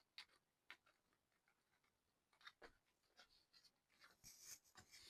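Faint clicks and scrapes of small parts being handled as a differential cover is pushed onto an RC car's rear end, with scattered taps that come more often in the second half.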